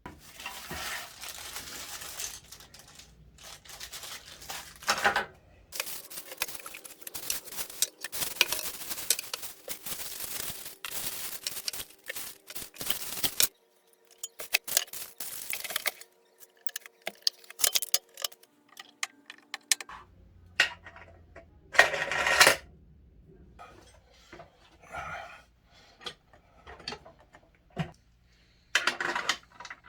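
Clatter, knocks and rustling of sewing-machine parts, tools and packaging being handled during assembly, in stretches that start and stop abruptly, with a few louder knocks.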